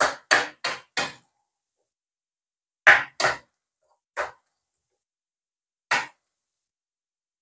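A spoon scraping and knocking against a non-stick frying pan while stirring and tossing shredded chicken: four quick strokes in the first second, then a pair of strokes about three seconds in, and single strokes near four and six seconds.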